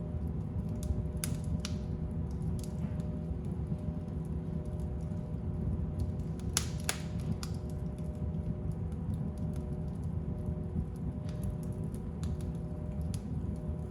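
Fire burning in a fireplace: a steady low roar with scattered crackles and pops, and a cluster of louder pops about seven seconds in.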